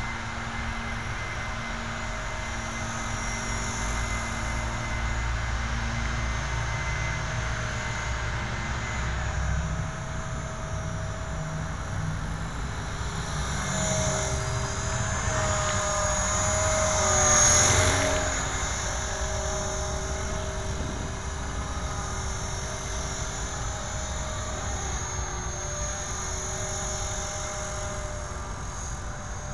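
Electric 450-size radio-controlled helicopter (Blue Ray 450 PE) flying, a steady whine of its motor and rotor that shifts slightly in pitch as it manoeuvres and swells to its loudest as it passes close about halfway through.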